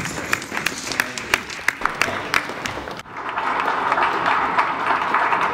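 Applause: a few people clapping in separate, sharp claps, then from about three seconds in a fuller, denser round of clapping from many hands.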